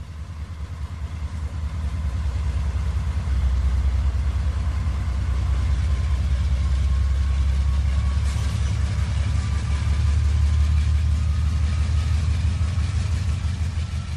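HO-scale model freight train rolling past on the layout track: a steady low rumble that swells about three seconds in, with a faint thin whine above it.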